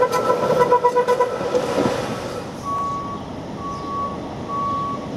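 New Orleans streetcar running past on its rails with a steady whine and rattle that drops away after about two seconds as it moves off. Then an electronic warning beep starts, one short steady tone about once a second.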